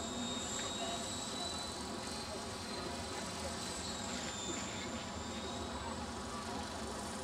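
Ikarus Eco 8 electric RC helicopter in flight: a steady, high, buzzing whine from its motor and rotor drive. The pitch dips slightly about four seconds in, then recovers.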